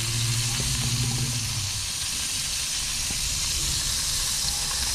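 Margarine melting and sizzling in a hot wok, a steady frying hiss. A low steady hum underneath fades out about a second and a half in.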